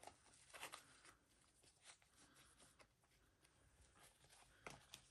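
Near silence with a few faint rustles and light taps of hands handling a leather ring planner and the paper clips in its pockets.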